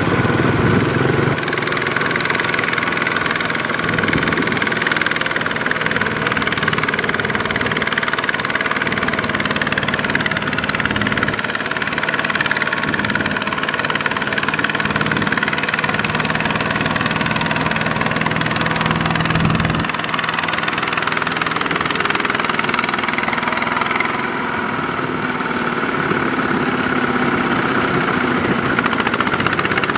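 Single-cylinder diesel engine of a two-wheel walking tractor running steadily under load as it drags a rice-laden trailer through mud.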